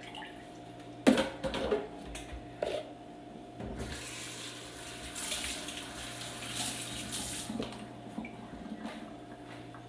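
A few sharp knocks about a second in, then the kitchen tap running into the sink as a plastic pitcher lid is rinsed under it.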